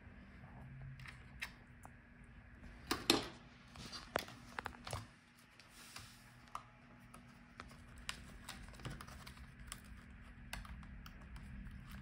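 Faint, scattered clicks and taps of hands handling an opened laptop's internals: circuit boards, ribbon cables and connectors being touched and set down, with a small cluster of clicks about three seconds in.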